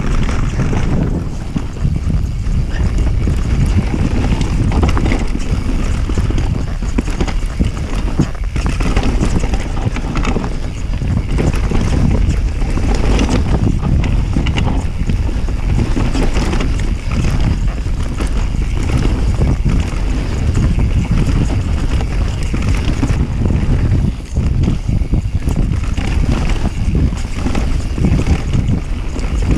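Wind buffeting the microphone while a mountain bike rides fast down a dirt forest trail: tyres rolling over dirt and roots, with frequent small knocks and rattles from the bike over bumps.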